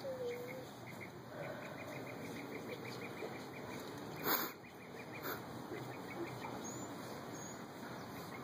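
Outdoor ambience with a few faint short chirps and whistles, and a single sharp knock about four seconds in.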